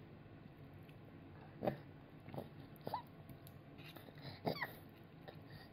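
A toddler eating: a few short, sharp mouth sounds spaced about a second apart, two of them brief rising squeaks.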